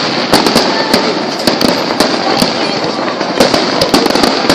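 Fireworks and firecrackers going off: many sharp bangs and cracks in quick, irregular succession over a steady crackling hiss.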